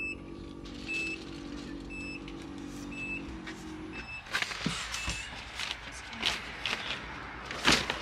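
Shopping bags and purchases being set into an SUV's cargo area: rustling and knocking, with the loudest thump near the end. For the first half a low steady hum runs under a short, high electronic beep that repeats about once a second. The hum stops about four seconds in, and the beeps stop shortly after.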